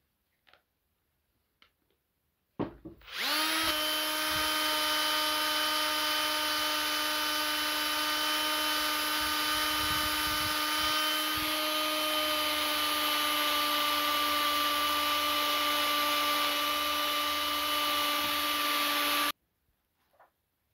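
Cordless drill spinning a yellow polishing pad against the steel head of a sledgehammer: a steady motor whine with a rubbing hiss. It starts about two and a half seconds in, winds up to speed within a second, and cuts off abruptly near the end, after a few faint ticks.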